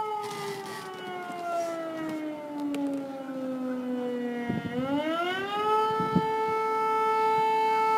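Civil defence siren wailing: its pitch slides slowly down for about four and a half seconds, then rises quickly over about a second and holds a steady high tone.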